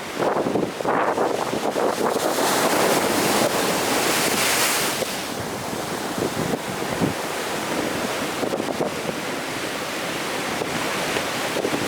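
Big ocean surf breaking and rushing along the shore. A wave crashes with a loud hiss about three seconds in, then washes on in a steady roar of foam.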